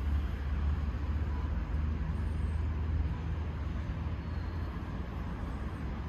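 Steady low outdoor rumble with an even hiss above it. The deepest part eases off about four and a half seconds in.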